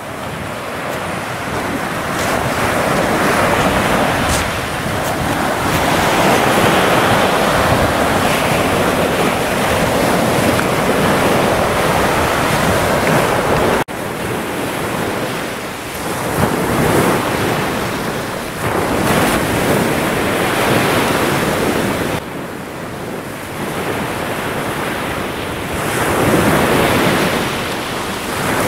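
Sea surf breaking and washing up over a pebble beach, swelling and easing every few seconds, with wind buffeting the microphone.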